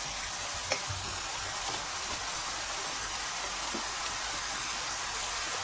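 Thick onion-tomato curry masala sizzling steadily in hot oil in a frying pan while it is stirred and fried down, the bhuna stage of the gravy. A single light knock about a second in.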